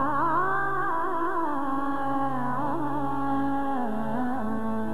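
Woman singing a bhajan in Indian classical style, her voice wavering through ornamented runs over a steady tanpura drone; the sung phrase ends a little before the drone stops being alone.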